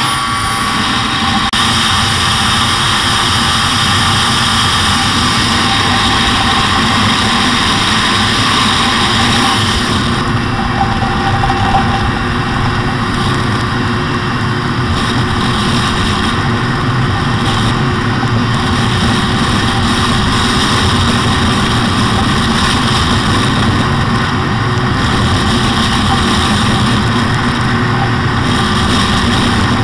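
Arctic Cat two-stroke snowmobile engines running steadily on a ride, heard from a moving sled. The sound changes slightly about ten seconds in, when its high hiss thins.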